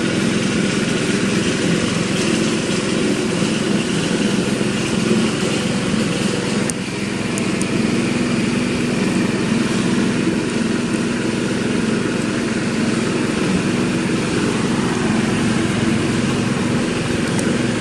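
A steady engine drone, like a motor idling, running evenly without a break.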